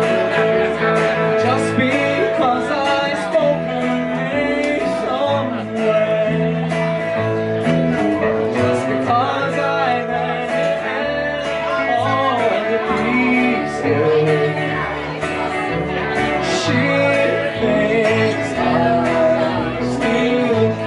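Live band playing, with an upright bass and an electric guitar, and a voice singing over them.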